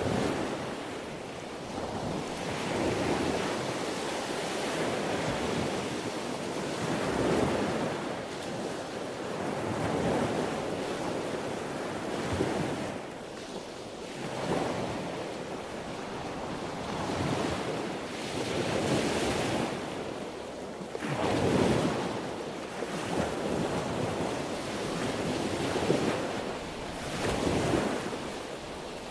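Sea waves breaking and washing on the shore, the surf swelling and ebbing every few seconds, with some wind.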